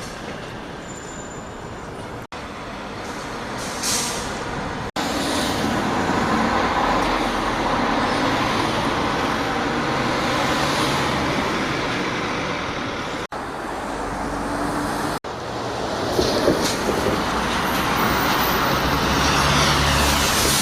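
Buses and trains running through a station, in several short cuts: a steady mix of engine and wheel noise, with a sharp hiss of air brakes about four seconds in.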